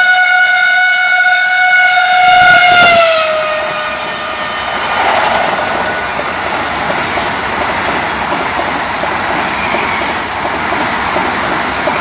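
Train 18 (Vande Bharat Express) trainset's horn sounding one steady note as it approaches at speed, the pitch dropping sharply about three seconds in as the train passes. Then the steady rushing noise of the coaches and wheels going by fast.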